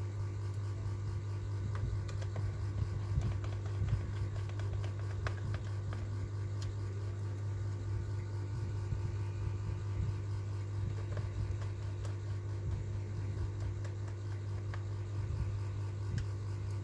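A steady low hum with several constant tones above it, and scattered faint clicks throughout.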